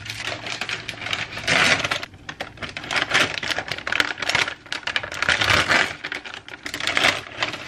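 Plastic candy bag crinkling and crackling as a hand rummages in it for candies.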